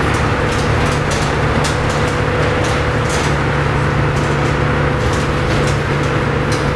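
Cabin noise inside a Mercedes Sprinter van driving at highway speed: a steady engine hum under road and wind noise.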